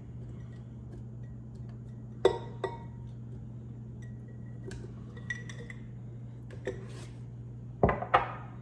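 Cucumbers knocking and clinking against a glass mason jar as they are handled and packed in: a few sharp clinks, loudest about two seconds in and a quick pair near the end, over a steady low hum.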